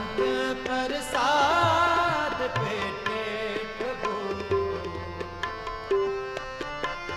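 Harmonium chords and tabla playing a Sikh kirtan accompaniment, the bass drum strokes bending upward in pitch. A sustained, wavering vocal line rises over them about a second in.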